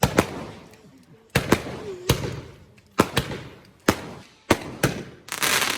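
Fireworks going off: about ten sharp bangs, some in quick pairs, each fading out in an echoing tail. Near the end comes a short burst of dense crackling.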